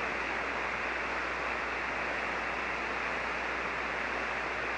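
Steady hiss of HF band noise from a ham radio receiver tuned to 40-metre single sideband, with no signal on the channel.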